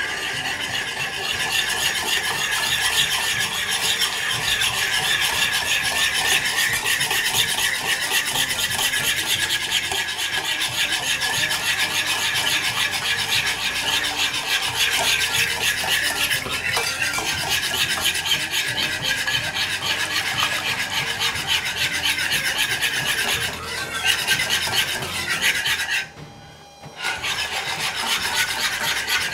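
Wire whisk beating egg mixture in a ceramic bowl, fast and steady scraping strokes against the bowl, while warm milk is added gradually so the eggs don't cook. The whisking stops for about a second near the end, then starts again.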